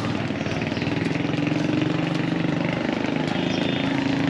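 A vehicle engine running steadily at low revs, over a haze of street noise.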